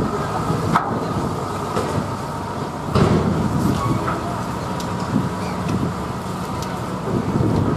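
Coach's diesel engine running steadily as the bus pulls slowly away. A few sharp clicks and one louder knock about three seconds in are heard over it.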